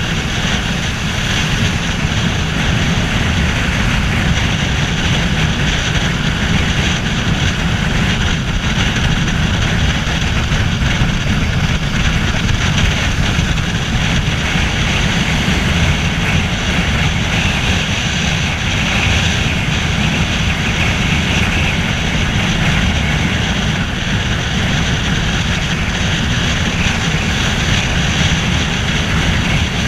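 Yamaha Fazer 250's single-cylinder engine running steadily at cruising speed, under heavy wind rush and road noise on the microphone.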